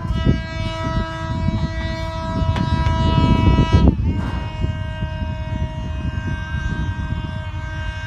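Hitachi diesel locomotive's air horn sounding two long, steady blasts, the first lasting nearly four seconds and the second starting right after a short break, over the low rumble of the train.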